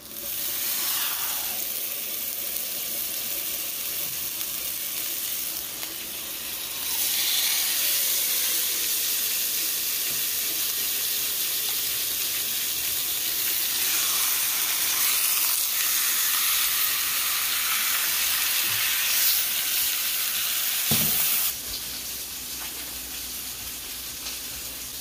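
Raw steaks sizzling in hot oil in a cast-iron skillet. The frying starts as the first steak goes into the pan and grows louder about seven seconds in. A single knock comes a little over twenty seconds in, after which the sizzle is quieter.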